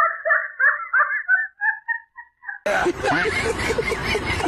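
A short, broken run of laughing syllables, tailing off. About two and a half seconds in, a loud, dense wash of noise cuts in abruptly and carries on.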